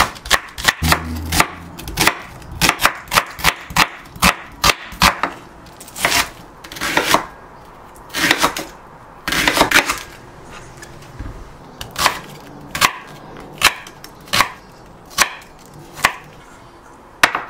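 Kitchen knife chopping spring onion and leek on a wooden cutting board. Quick strikes of the blade on the board come about three a second for the first few seconds. Slower cuts follow, with a few longer slicing sounds through the leek, then steady chops about once a second.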